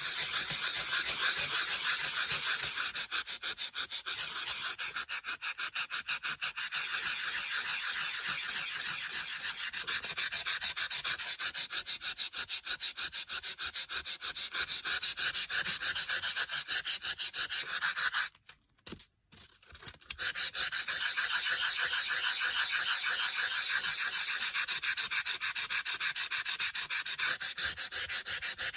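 Sanding block rubbed quickly back and forth over embossed white-core cardstock, wearing the coloured surface off the raised pattern. The scratchy strokes run at an even pace and stop briefly for about two seconds about two-thirds of the way through.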